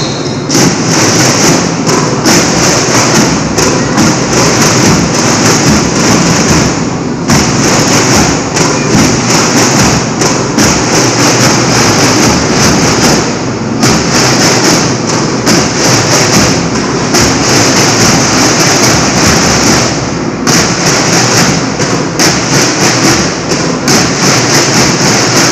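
School drum and lyre band playing loudly, with repeated heavy drumbeats under the ringing of bell lyres, loud enough to overload the phone's microphone.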